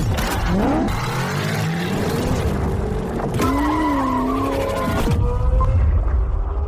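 Car sound effects over a low musical drone: an engine revving, its pitch gliding up and down, and tyres skidding. The skid noise stops about five seconds in, leaving a held tone that fades out.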